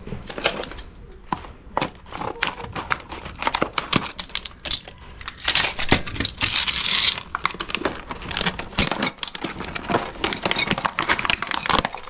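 Stiff clear plastic blister packaging of a deadbolt lock being handled and pried open by hand: a run of small crackles and clicks, with a longer, louder crinkling tear about six seconds in.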